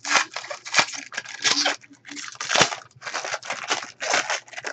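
Packaging crinkling and tearing as a RAM water block is unwrapped by hand, in an irregular run of rustles.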